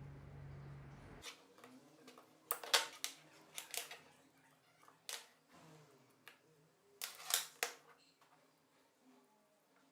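Sharp clicks and knocks of small hard objects being handled, coming in short clusters of two or three, after a low hum that stops about a second in.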